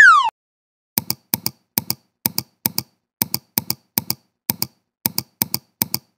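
A quick falling swoosh at the start, then a steady series of short dry clicks in pairs, between two and three pairs a second, like a keyboard or mouse clicking sound effect.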